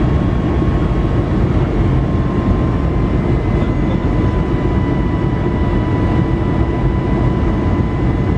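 Airbus A320 cabin noise heard from a window seat by the wing during the descent to land: the steady roar of the turbofan engines and rushing air, with a thin steady whine running over it.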